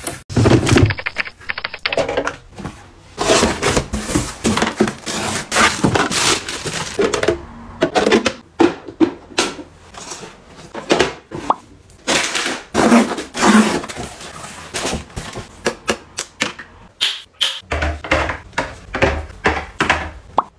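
Close-up handling sounds of plastic bathroom fittings and bottles: rapid irregular clicks, taps and knocks with some rustling and scraping as pieces are fitted and set in place.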